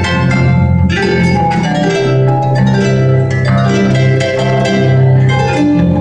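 Paraguayan harp playing a fast plucked melody over ringing low bass notes.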